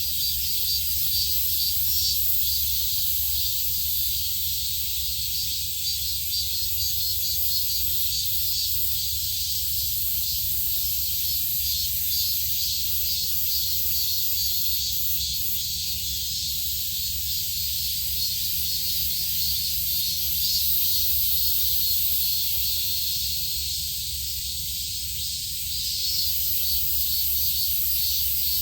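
Steady high-pitched insect chorus, an even shimmering hiss, over a constant low hum.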